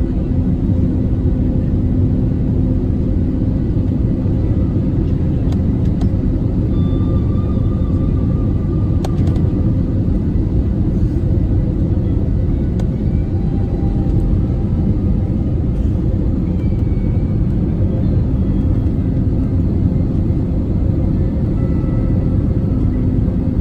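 Airbus A320neo cabin noise on final approach: a steady low rumble of airflow and engines with a constant low hum, heard inside the cabin.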